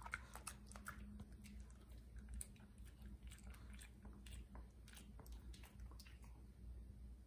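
A Shih Tzu chewing a small dog treat: faint, irregular crunches.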